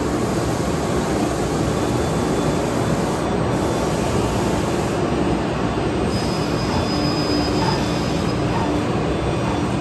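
2008 Thermwood Model 45 CNC router running as its gantry moves across the table and the spindle comes down to the sheet: a steady, loud whirring machine noise with a low hum. A faint high whine joins about six seconds in.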